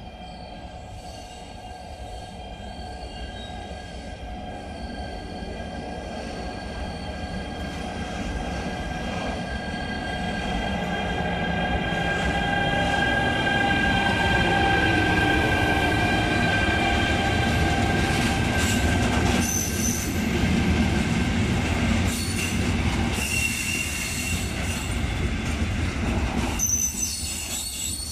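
Electric freight train of intermodal wagons carrying lorry trailers rolling into a station. Its brakes and wheels give a steady high-pitched squeal over the rumble, which grows louder as the locomotive passes close, typical of a train braking to a stop.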